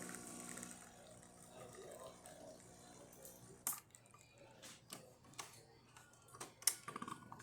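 Gaggia Babila super-automatic espresso machine's pump humming steadily as it dispenses a shot, cutting off about halfway through. A scattering of sharp clicks and taps follows.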